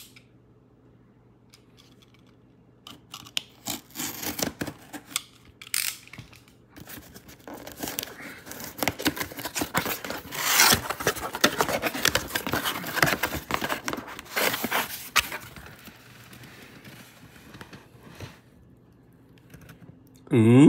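Reinforced paper packing tape on a cardboard shipping box being cut and torn open, with cardboard scraping and rustling. After a quiet first few seconds it comes as irregular ripping and scraping noises, then fades to softer rustling near the end.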